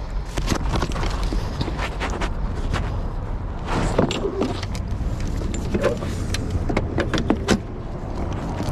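Handling a lawn mower's plastic grass catcher: a run of clatters, knocks and short scrapes as the bag is carried over and refitted to the back of the mower, over a steady low rumble.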